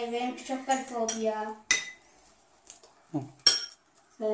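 Metal spoons clinking and scraping against glass and ceramic bowls while stirring slime mixed with styrofoam beads, with a few sharp clinks, the loudest about three and a half seconds in.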